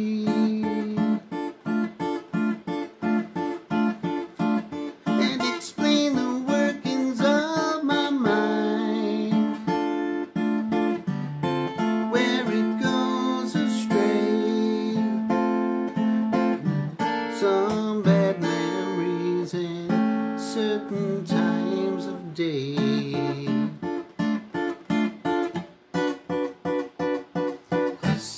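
Acoustic guitar strummed in a steady rhythm, about two strokes a second, changing chords as it goes.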